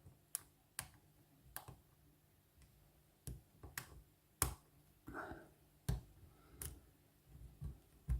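Lock pick working the pin stack of a Lockwood oval padlock: faint, sharp metallic clicks, about ten at uneven intervals, as the hook lifts and sets pins.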